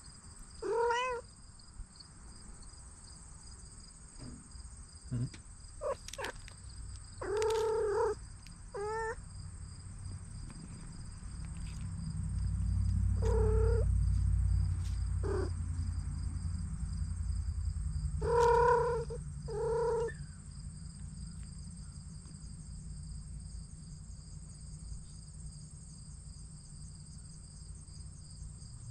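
Cats meowing: about seven short meows scattered through, some in close pairs, with a low purr rumbling close by through the middle stretch.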